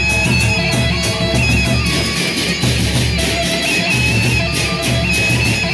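Sasak gendang beleq gamelan ensemble playing: large double-headed drums are beaten under a fast, steady clashing of hand cymbals, with a high melody line stepping between held notes.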